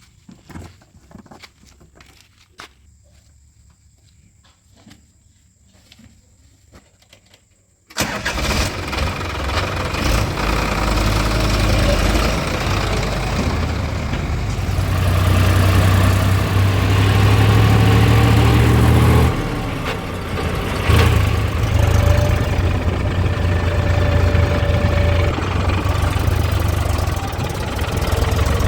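Faint scattered clicks, then about a quarter of the way in the diesel engine of heavy earthmoving machinery comes in abruptly and runs loud under load, with a steady low drone that dips briefly twice past the middle.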